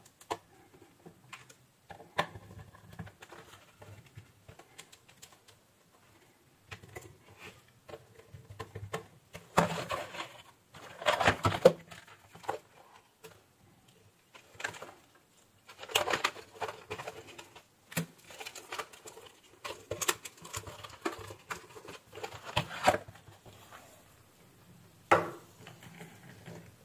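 Scattered clicks, taps and rustles of hands working the plastic housing and LED board of a ceiling light and pushing wire connectors together. The sounds come in short clusters, loudest about ten to twelve seconds in, again around sixteen, twenty to twenty-three and twenty-five seconds.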